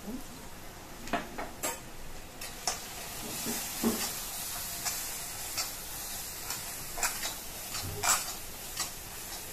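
Onions, green chillies and spices sizzling in a kadai while a metal spatula stirs and scrapes through them. Sharp taps of the spatula against the pan cut through the hiss, which grows fuller after about three seconds.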